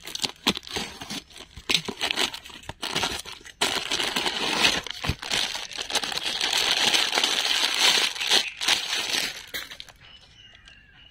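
A cardboard box being cut and torn open with a knife, with scraping and sharp clicks, then a plastic bag crinkling for several seconds as a small desk fan is pulled out and unwrapped. It goes quieter near the end.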